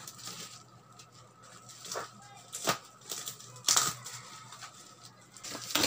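Plastic bubble-wrap packaging rustling and crinkling as it is handled and unwrapped, with a few sharp crackles.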